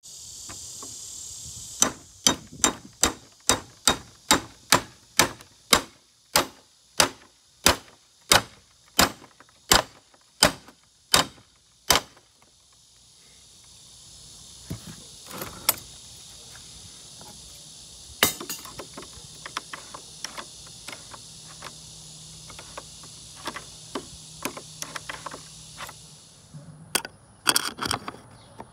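A run of about seventeen sharp metal strikes, about one and a half a second, driving a Rex tool onto a rim lock's cylinder. Then quieter scraping, clicks and knocks as the cylinder is pulled and a key tool is worked in the lock, with a few sharper knocks near the end.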